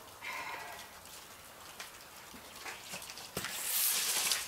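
A rubber broom sweeping a concrete patio: a knock about three and a half seconds in, then a scraping hiss of about a second. There is a brief whine near the start.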